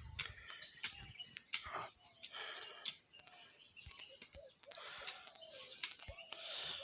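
Faint bird chirps over quiet outdoor ambience, with a few sharp clicks.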